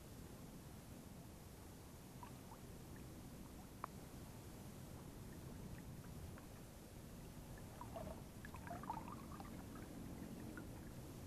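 Small tilapia splashing and gurgling at the water surface as it is played on a fishing line, in a cluster of splashes about eight to nine and a half seconds in. A single sharp click comes about four seconds in, over a steady low rumble.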